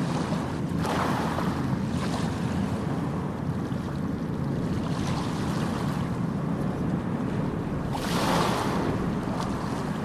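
Ocean waves washing onto a beach, with surges of surf about a second in, around two and five seconds, and the loudest one near the end, over a steady low rumble.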